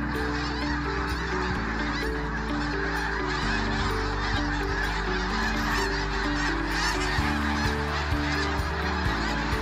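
A large flock of geese calling together, a dense, continuous clamour of overlapping honks. Background music with a stepping bass line and a light beat plays underneath.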